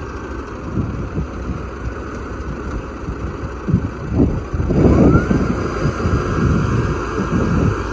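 Riding tea harvester's engine running steadily, then revving up with a rising whine about five seconds in and holding at the higher pitch. Wind buffets the microphone.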